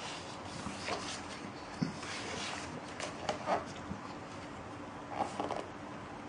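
Pages of a large hardcover book being turned and handled: paper rustling and swishing in several short bursts over a steady background hiss.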